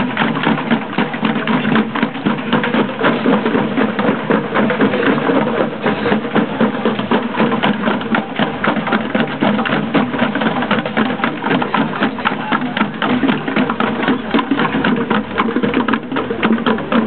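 A group of hand drummers playing a fast, steady beat with many rapid strikes.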